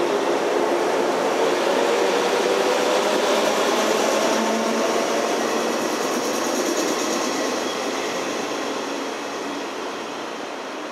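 JR 113 series electric train pulling out of the platform, its motors and wheels running on the rails. The sound is loud at first and fades from about halfway as the last car draws away.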